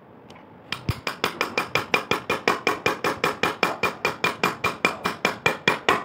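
Rapid hammer strikes on the end of a ceiling-fan shaft seated in its bearing housing, about five or six a second starting just under a second in, each with a short metallic ring. The shaft is being knocked through to drive out a stuck, rusted bearing.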